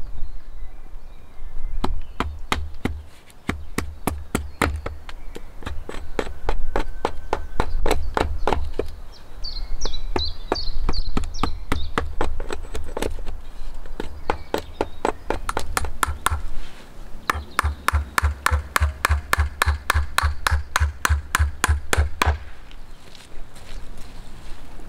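Hand tools striking wood: runs of quick, sharp wooden knocks and chops, about three or four a second, with short pauses between runs. A last steady run of blows stops near the end.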